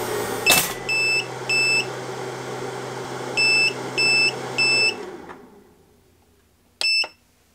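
DeWalt DXAEPI1000 power inverter sounding its overload alarm: two short high beeps, then three more, after its overcurrent protection has cut the output under a four-slice toaster's roughly 1500 W load. The inverter's steady hum dies away about five seconds in, and near the end a press of its power button gives a click and one short beep.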